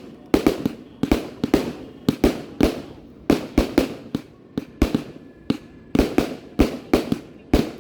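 Fireworks going off in rapid succession, a quick string of sharp bangs at about three or four a second, each trailing off briefly.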